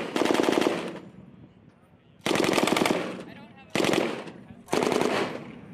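M240B 7.62 mm belt-fed machine gun firing short bursts from its bipod: four bursts, each under a second long, with pauses of about a second between them.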